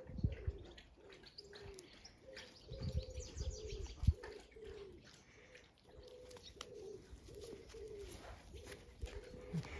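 A pigeon cooing over and over in short, low, falling phrases, with a small bird chirping briefly about three seconds in and a few soft low thumps.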